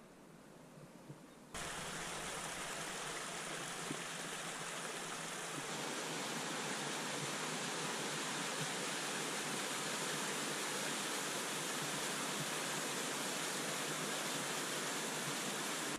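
Small waterfall on a rocky mountain burn: a steady rush of falling and splashing water that cuts in abruptly about a second and a half in, after a quieter stretch of outdoor ambience.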